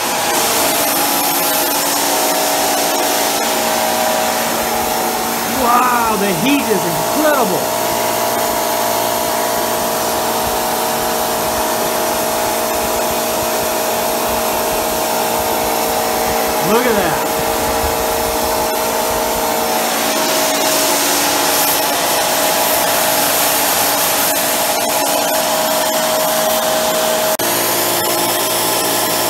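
Homemade propane micro jet engine (a blow torch fed by a high-velocity air jet swirling air and propane) running lit, a steady rushing hiss with several steady humming tones over it. Brief swooping tones rise and fall about six seconds in and again midway.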